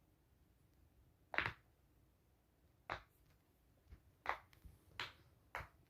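Bubbles of a rainbow-shaped silicone pop-it fidget toy being pressed through one at a time, giving soft separate pops. There are about five of them, roughly a second apart, beginning about a second and a half in.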